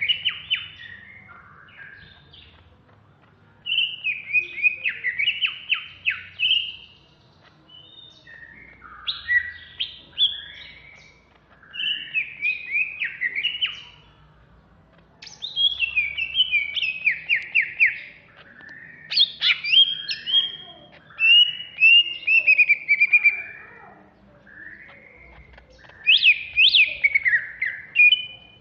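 Greater green leafbird (cucak hijau) singing in its fierce 'ngentrok' style: phrases of fast, rattling, chattering notes, one to three seconds long, repeated with short pauses between.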